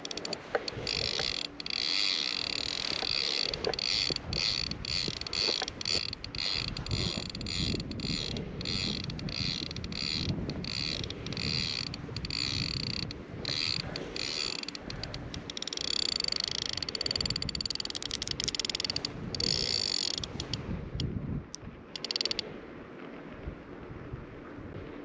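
Fishing reel giving a fast ratcheting click in runs with short breaks, stopping about 22 seconds in.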